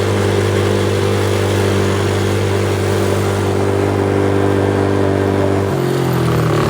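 ATV engine running at a steady speed, then dropping in pitch about six seconds in as it slows down.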